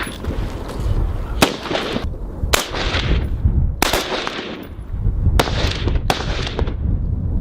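M27 Infantry Automatic Rifles firing single 5.56 mm shots, about five at irregular intervals, each followed by an echo that dies away.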